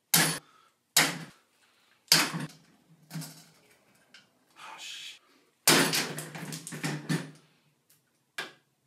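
A run of separate knocks and bangs, roughly one a second, with a dense stretch of clattering about six to seven seconds in, like household objects being banged and knocked over.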